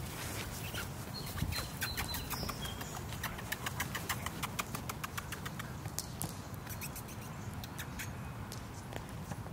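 German shepherd puppies' paws pattering quickly over grass: a run of sharp light ticks, several a second, from about a second in until about six seconds, over a steady low rumble.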